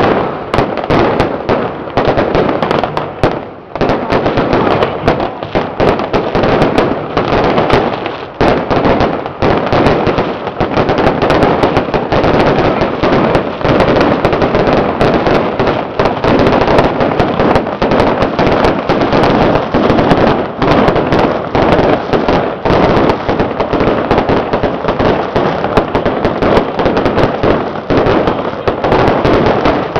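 Strings of firecrackers going off in a dense, continuous crackle of rapid bangs, with a brief dip about three and a half seconds in.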